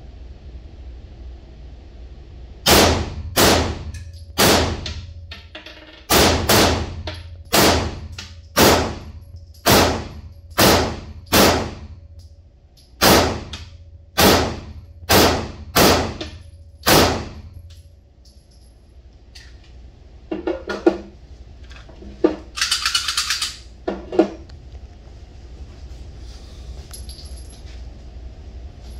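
SIG P320 pistol fired about fifteen times at an uneven pace, roughly one shot a second with short pauses, each shot echoing in the indoor range. After the string ends come a few clanks and a short rattle.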